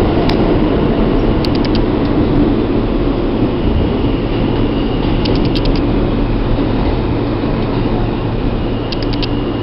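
NYC subway car (E train) under way, heard from inside the car: a loud, steady rumble of the wheels on the rails. Three times a quick run of four or five high clicks cuts through it, about a second and a half in, past the middle, and near the end.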